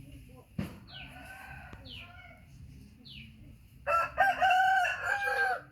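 A rooster crowing once near the end, a short note followed by a long held one. Small birds chirp before it, and there is a single knock about half a second in.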